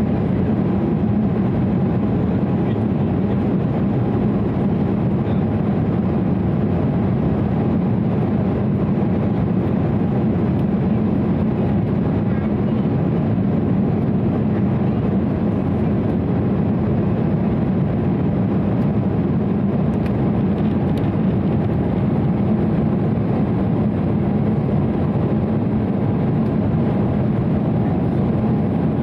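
Steady cabin noise of an Embraer 195 in flight, heard from a window seat over the wing: the General Electric CF34-10E turbofans and the airflow make an even roar with a faint steady whine in it.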